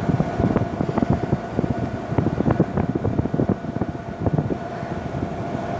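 A 1981 Emerson Quiet Kool 18,000 BTU window air conditioner running, its fan rushing air out of the discharge with a steady tone underneath. The air gusts unevenly against the microphone.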